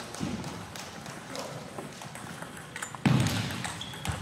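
Celluloid-type table tennis ball clicking off the bats and table as a point is served and rallied, with a loud thump about three seconds in.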